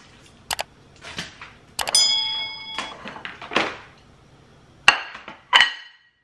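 Dishes and kitchen items handled on a granite countertop: scattered clicks and knocks, a clink that rings on briefly about two seconds in, and two sharp clinks near the end.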